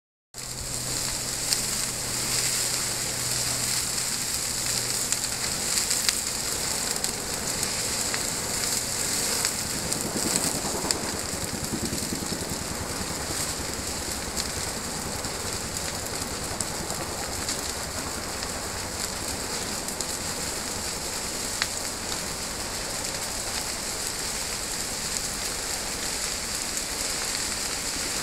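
Wildfire flames burning through brush and trees: a steady hissing crackle of burning vegetation with scattered sharper pops.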